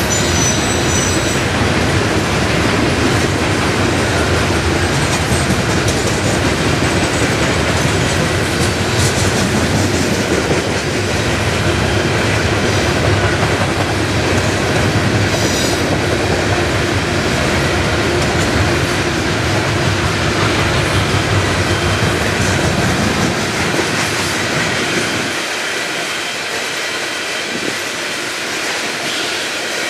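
Loaded coal train's hopper cars rolling past at track side, a steady loud rumble of steel wheels on rail. A brief high wheel squeal rings out right at the start and again about 15 seconds in, and the deep rumble thins out about 25 seconds in.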